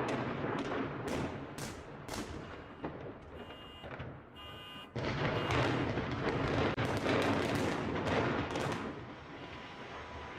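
Building implosion by explosive demolition: a rapid string of sharp blasts from the charges, then about five seconds in a sudden jump into the rumble of the structure coming down, with more cracks, slowly fading.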